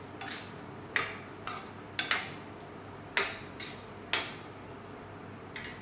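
A metal spoon knocking and scraping against a cooking pot while stirring, about nine short irregular clinks.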